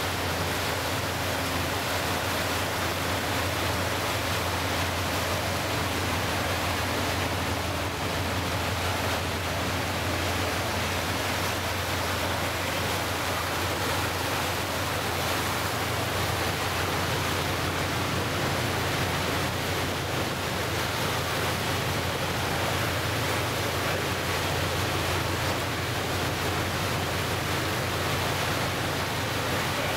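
Steady rush of water churned up in a passenger motor boat's wake, over the low, even hum of the boat's engine.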